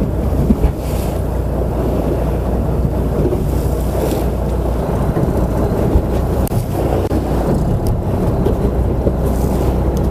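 Fishing boat's engine running with a steady low hum, with wind buffeting the microphone and waves washing against the hull.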